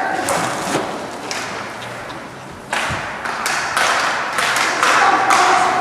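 Hockey game play in an echoing indoor rink: scattered sharp knocks and thuds of sticks, puck and boards, over a wash of crowd noise with a few voices.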